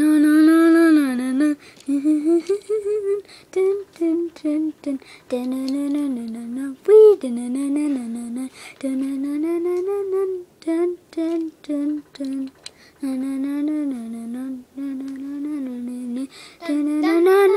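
A child humming a wordless, wandering tune, in long bending notes broken up by stretches of short, choppy ones.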